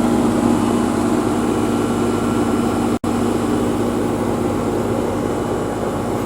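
Goodman heat pump outdoor unit running steadily: a constant compressor hum with fan and airflow noise. The sound cuts out for an instant about three seconds in.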